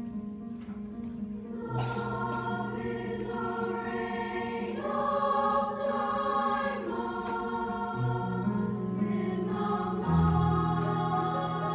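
Women's choir singing in several parts with piano accompaniment. The voices come in together about two seconds in over held piano notes, and the music swells with a deep piano note near the end.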